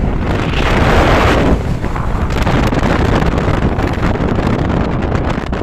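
Wind buffeting the microphone in a moving open-top car, over a steady low rumble, with a stronger gust from about half a second to a second and a half in.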